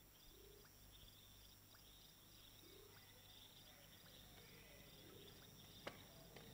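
Near silence: faint night ambience with a cricket chirping at an even, steady rhythm. A single soft click comes near the end.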